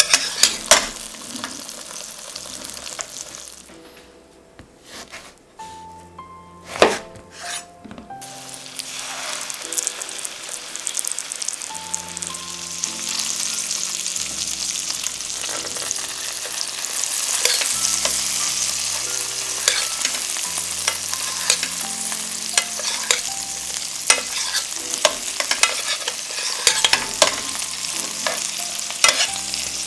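Chicken breasts sizzling in butter in a stainless steel sauté pan, with sharp clinks of a metal spoon against the pan as the butter is spooned over them. The sizzle drops lower around four to eight seconds in, then runs steadier and louder.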